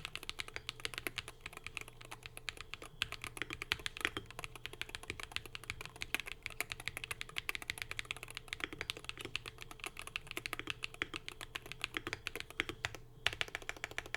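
Fast typing on a Wooting 60HE+ keyboard with hand-lubed WS Dash HE magnetic switches, stock keycaps, and an AIM60 aluminium case with tape mod and full foam. A dense, rapid run of key clacks, with brief pauses about three seconds in and near the end.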